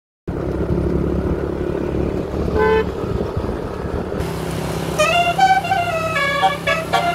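Tour bus engine running with a steady low hum, a short horn toot about two and a half seconds in, then from about five seconds the bus's multi-tone 'telolet' basuri horn playing a quick tune of changing notes.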